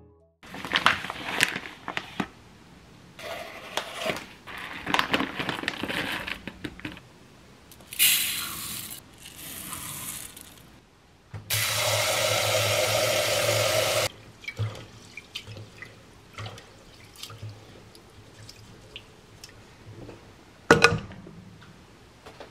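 Kitchen tap water running steadily for about two and a half seconds into a rice cooker's inner pot of brown rice, after a stretch of rustling and small clicks from handling the rice and pot. A single sharp clunk comes about 21 seconds in, as the pot is handled in the metal sink.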